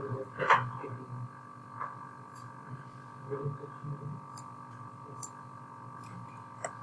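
Computer mouse clicking three times in the second half, short sharp clicks, over a steady electrical hum, with faint background voices.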